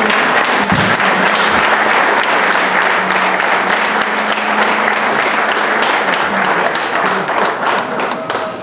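Audience applauding, a dense steady clapping that thins out and dies away near the end.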